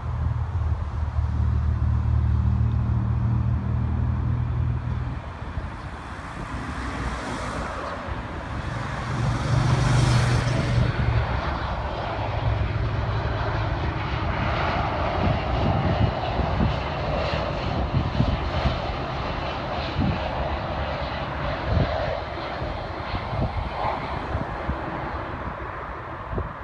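Jet airliner engines on approach to land. A low rumble in the first few seconds, then a louder rushing roar that swells about ten seconds in, and a steadier roar for the rest.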